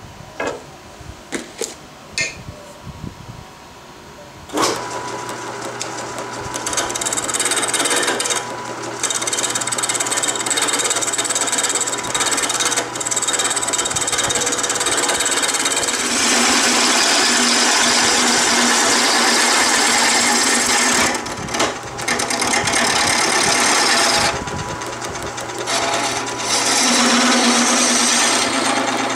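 A few light knocks, then about four seconds in a wood lathe starts and a turning gouge cuts the spinning wooden handle blank: a continuous scraping, hissing cut over the lathe motor's steady hum, growing louder and softer as the tool is worked along the blank.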